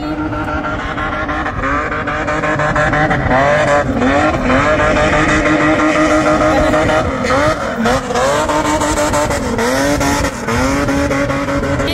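A 4x4 SUV's engine revving hard during a drift, its pitch climbing, holding high and dropping back several times, with tyres squealing as they spin and smoke on the track.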